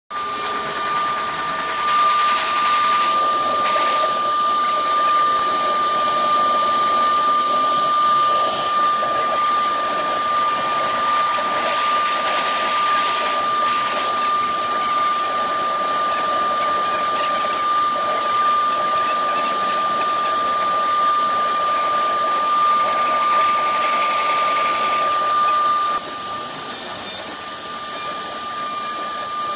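CNC router spindle engraving MDF: a steady high whine from the spindle over the hiss of the bit cutting the board, turning brighter and hissier near the end.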